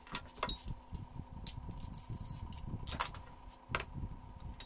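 Handling noise on a workbench: crinkling aluminium foil and several sharp clicks and taps as a foil-wrapped handle piece and a meat cleaver are picked up and set down, over a faint steady hum.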